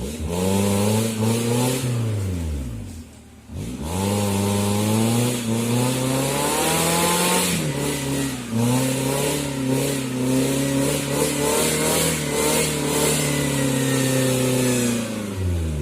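Suzuki Jimny 4x4's engine revving hard: a short burst that falls away after about two and a half seconds, then a long run held at high revs that drops off near the end.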